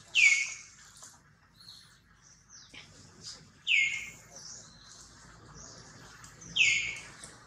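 Newborn macaque crying: three loud, high-pitched calls a few seconds apart, each falling in pitch and lasting under half a second.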